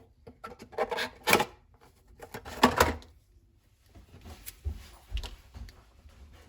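Clicks, knocks and clatter of objects being handled on a workbench, with a few sharper knocks about a second in and near three seconds in.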